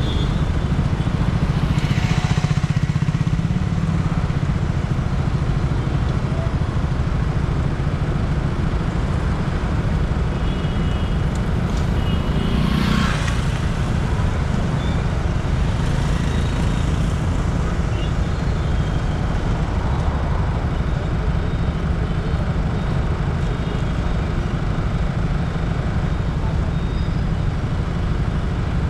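Road traffic noise on a busy city highway: a steady low rumble of engines and tyres, with a vehicle whooshing past about two seconds in and again around thirteen seconds.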